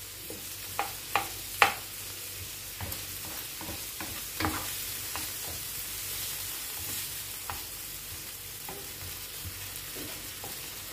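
Chopped onion and tomato sizzling in oil on a tawa while a wooden spatula stirs and scrapes them, being sautéed until soft. There are a few sharp taps of the spatula on the pan in the first two seconds, with softer scrapes after.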